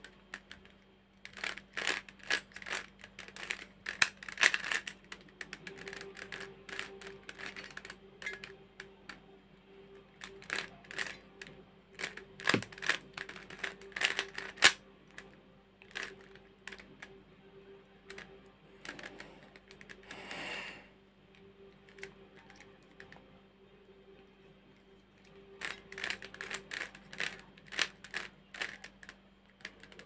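Plastic 3x3 Rubik's cube being turned by hand: quick runs of clicking and clacking as the layers snap round, with a quieter pause of several seconds in the middle.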